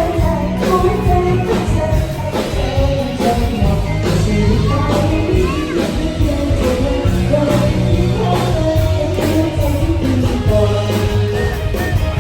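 Upbeat pop-rock song with a singing voice over bass, guitar and a steady drum beat.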